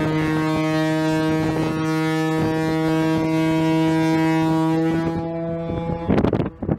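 Ship's horn of the BC Ferries ferry Queen of Cumberland sounding one long, steady, deep blast that stops about six seconds in, followed by a brief rush of wind noise on the microphone.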